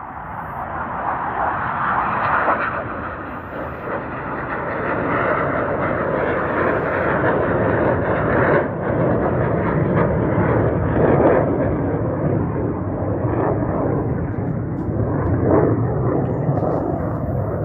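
Aircraft flying past, its engine noise building over the first two seconds and then staying loud and steady.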